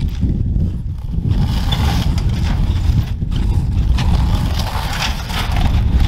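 Boots crunching through snow and a plastic ice-fishing sled scraping over it as it is hauled on its pull poles, over a steady low rumble.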